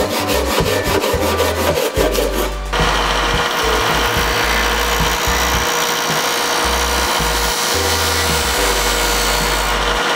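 A fine-toothed handsaw cutting a thin cedar strip in quick, even strokes. About three seconds in, a stationary disc sander takes over, running with a steady hum and grinding as the strip's end is sanded to shape.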